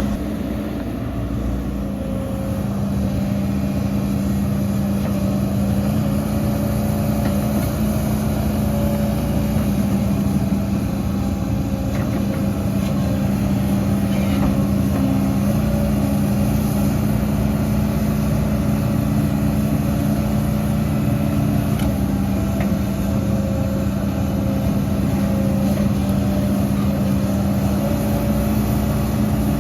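Heavy diesel earthmoving machinery running steadily, its engine pitch shifting slightly up and down now and then.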